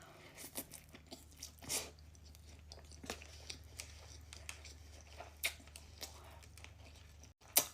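Close-up chewing of sushi: faint, irregular wet mouth clicks and soft crunches over a low steady hum, with a sharper click near the end.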